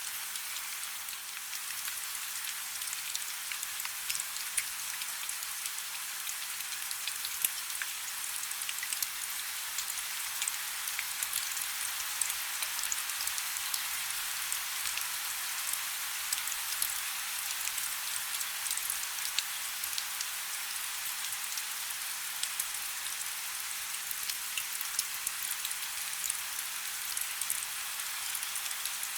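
Steady rain falling, an even hiss with many small sharp drop ticks and little low rumble.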